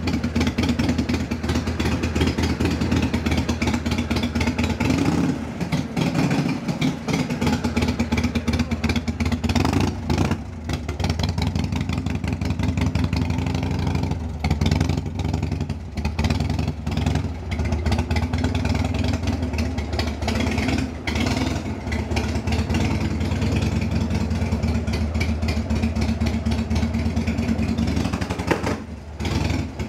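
Cruiser motorcycle's V-twin engine running steadily at idle, with a few brief dips in level, indoors in a garage.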